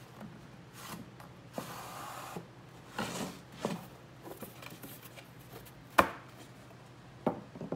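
Laminated particleboard furniture panels being handled and fitted together: a short scraping slide about two seconds in, then a few hard wooden knocks, the loudest about six seconds in.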